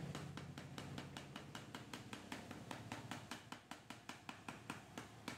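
Quick, even knocking, about five knocks a second, from a removed Toyota Avanza fuel filter being shaken out by hand during cleaning.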